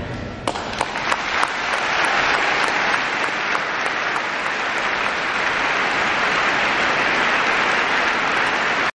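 Audience applauding at the end of an ice dance program. The music stops right at the start, a few separate claps come in about half a second later, and within a second or two they swell into steady applause that cuts off abruptly at the very end.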